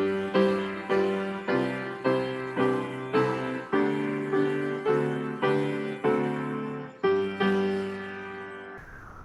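Piano playing a slow run of chords. The last chord is held and rings out, fading away shortly before the end.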